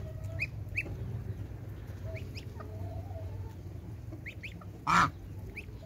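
Goslings peeping in short, high chirps while pecking at their food, with a fainter low call now and then. About five seconds in comes one brief, louder sound.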